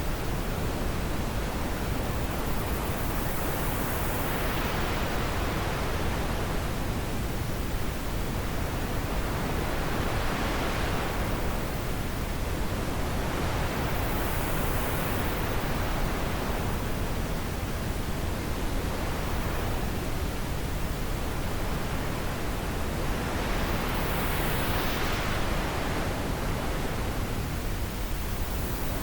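Steady wind noise, swelling and easing in gusts several seconds apart.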